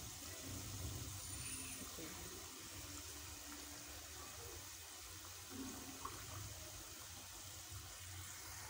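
Faint, steady rushing hiss with a low hum underneath, and no distinct knocks or splashes.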